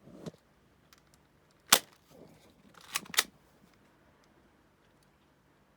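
Tokyo Marui GLOCK 17 10-sai spring airsoft pistol firing, giving sharp snaps: one about two seconds in, then two close together about three seconds in.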